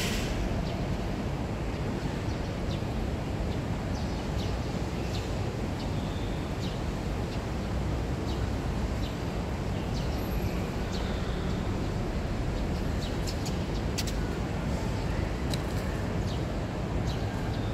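Steady low outdoor rumble, with scattered short high chirps and ticks over it and a sharp click at the very start.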